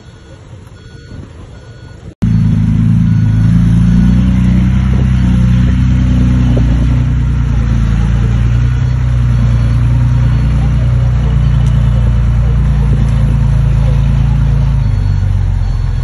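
Heavy diesel engine of construction machinery running steadily and loud, with a low drone whose pitch shifts a little at first. It starts abruptly about two seconds in, after a quieter engine rumble.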